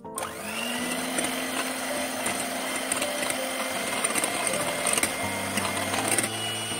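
Electric hand mixer switching on and running steadily as its beaters whip egg whites in a glass bowl; the motor's pitch rises briefly as it gets up to speed.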